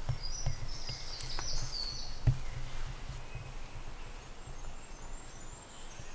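Woodland birds chirping over a low, uneven rumble of background noise. There is a cluster of high chirps in the first two seconds, fainter calls later on, and a single sharp click a little over two seconds in.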